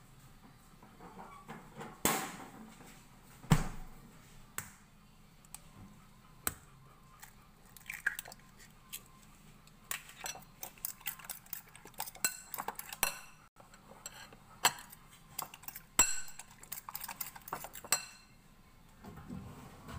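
Metal spoon clinking and knocking against a mixing bowl of egg, tomato and onion as the mixture is stirred. There are a few louder knocks and quick runs of light clinks in the second half.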